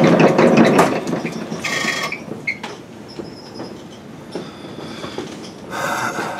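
Metal lathe running while the tool cuts a chamfer on the edge of a splined bore. A loud, rattling cut for about the first second, then the lathe runs on with a quieter mechanical clatter, and a short rush of noise comes near the end.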